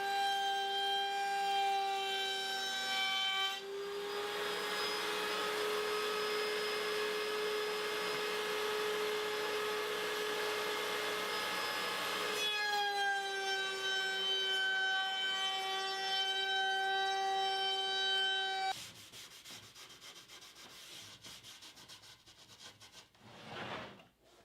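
Power woodworking machine's motor running with a steady high whine. For about nine seconds in the middle a maple board is fed through it, adding a loud rushing cutting noise. The machine shuts off a few seconds before the end, leaving quieter rubbing sounds of wood being handled.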